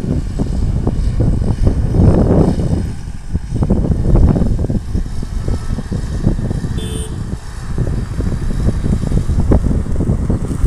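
Wind buffeting the microphone in gusts, as a loud uneven rumble that swells about two and four seconds in. A brief high tone sounds once about seven seconds in.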